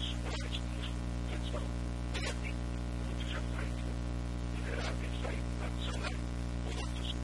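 Steady electrical hum, with faint, short, indistinct sounds scattered over it.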